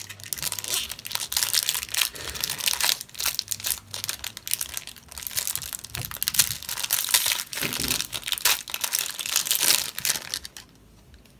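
Foil wrapper of a Match Attax football card pack being torn open and crinkled in the hands, a dense crackling that stops shortly before the end.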